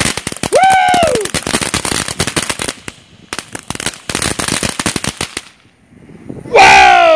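Warrior ground fountain firework spraying sparks: a hiss with dense crackling that thins out and stops about five and a half seconds in as the fountain burns out. A short exclamation from a person about a second in, and a loud voice falling in pitch near the end.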